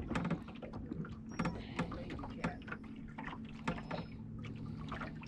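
Lake water lapping and slapping against a boat's hull as the boat drifts slowly up to a jug-line float, with scattered small knocks and splashes over a steady low hum.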